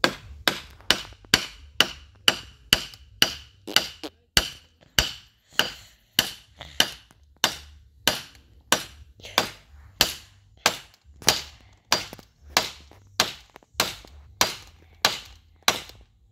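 Hammer blows at a steady pace of about two a second, some ringing briefly, as a garden trellis is nailed together.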